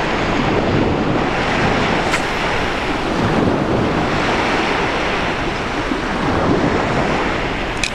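Baltic Sea surf washing onto a sandy beach, a steady rush of breaking waves, with wind buffeting the microphone.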